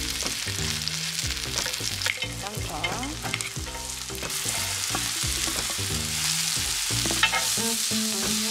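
Scallions, onion and cabbage sizzling in hot oil on a griddle pan, stirred and scraped with a spatula, with scattered taps and clicks of the spatula on the pan.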